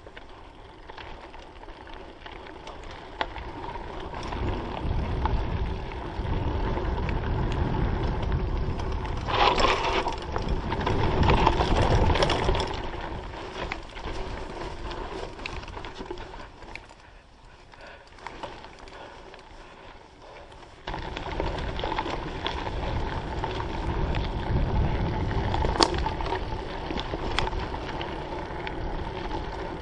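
Mountain bike ridden along a dirt trail, heard through a GoPro: a rough rumbling and rattling with scattered sharp knocks. It swells and fades, drops quieter for a few seconds about two-thirds of the way through, then picks up again suddenly.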